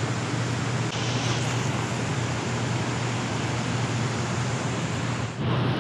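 Steady rush of water flowing below a dam, with a low steady hum under it.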